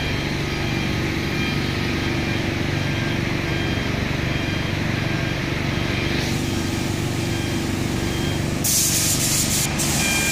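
Steady hum of factory machinery, then about eight and a half seconds in a compressed-air paint spray gun starts hissing loudly as radiator panels are sprayed in a paint booth.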